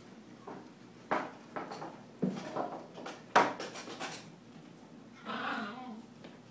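A quick series of sharp knocks and clatters, the loudest about three and a half seconds in, followed near the end by a short pitched sound.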